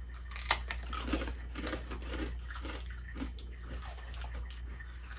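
Two people biting into and chewing Ruffles queso ruffled potato chips: irregular crisp crunches, the sharpest in the first second or so, then steadier chewing.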